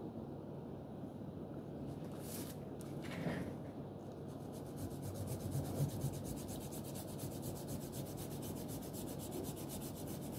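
Hands rubbing and handling paper on a tabletop, with soft scratching; from about halfway through, quick, even scratching strokes like pencil on paper.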